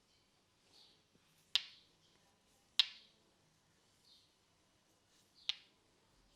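Three sharp snaps from the barber's hands during a head massage, about a second and a half in, near three seconds, and again near the end, over faint bird chirping.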